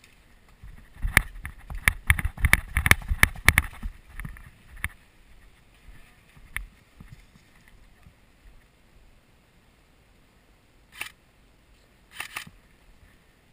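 A quick, irregular run of sharp clicks and knocks, about three or four a second, starting about a second in and lasting about three seconds. A few single clicks follow, and there are two short rustling bursts near the end.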